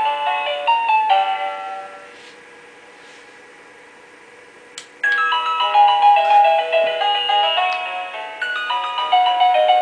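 Motion-sensor chime receiver playing a synthesized electronic melody of quick beeping notes; the tune ends about two seconds in and fades, a single click sounds near the middle, and a second melody starts about five seconds in.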